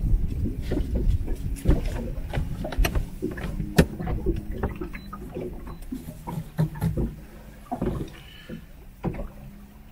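Irregular clicks, knocks and rustles of spinning tackle being handled in a PVC inflatable boat, over a low rumble, growing quieter towards the end.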